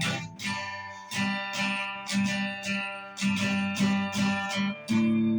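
Acoustic guitar strummed in a steady rhythm, about two strokes a second, as an instrumental passage of a folk song with no singing.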